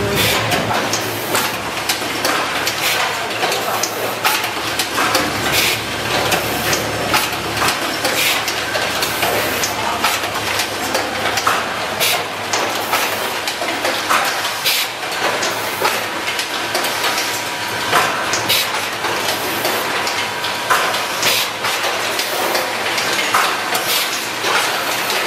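Automatic switch-assembly machines running: a dense, irregular clatter of small metallic clicks and knocks over a steady mechanical hum.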